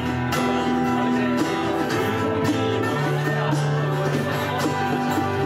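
A small live band playing a folk song: acoustic and electric guitars with keyboard, held notes under plucked and strummed guitar.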